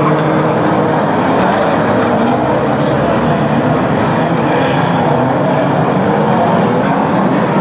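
A pack of banger-racing cars running together, many small car engines revving at once, their notes rising and falling over one another over a steady wash of engine and tyre noise.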